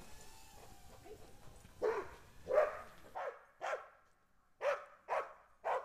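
A dog barking: a series of about seven short, sharp barks starting about two seconds in, roughly two a second.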